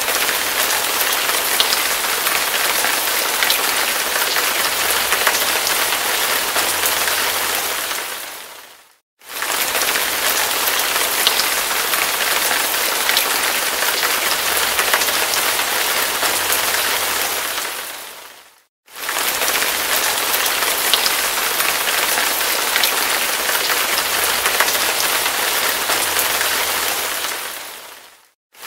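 Heavy rain falling, a dense steady hiss of drops. The sound fades out to a moment of silence and starts again about every nine and a half seconds, three times: a short audio loop.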